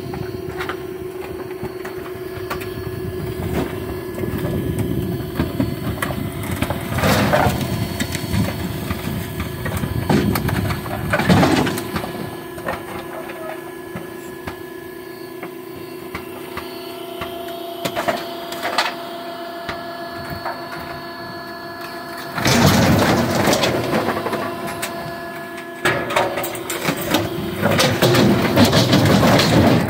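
Hydraulic garbage compactor running with a steady hum as its ram pushes into a wooden dresser, the wood cracking and splintering now and then. Long stretches of loud crunching come about two-thirds of the way through and again near the end as the furniture breaks up.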